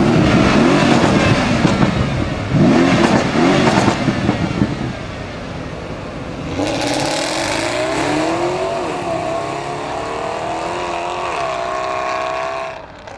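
RENNtech-tuned Mercedes-Benz CLS63 AMG's twin-turbo V8 exhaust revving hard, with sharp crackles in the first few seconds. About six seconds in, the car accelerates away, its engine note climbing, dipping briefly and climbing again before fading just before the end.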